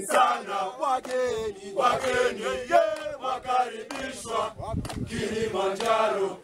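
A group of men from a Kilimanjaro climbing crew singing a chanted song together, clapping along.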